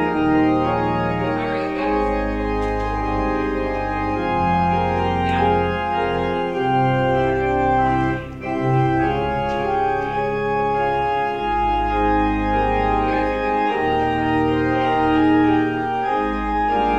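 Church organ playing sustained full chords over deep pedal bass notes that change every couple of seconds.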